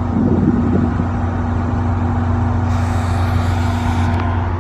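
Vehicle engine idling with a steady low hum. A brief hiss rises over it around three seconds in.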